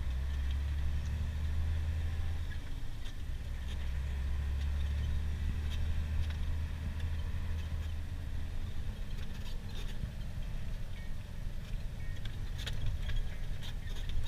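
Scania truck's diesel engine running, heard from inside the cab while driving, with scattered light clicks and rattles. The low engine hum drops off noticeably about eight seconds in.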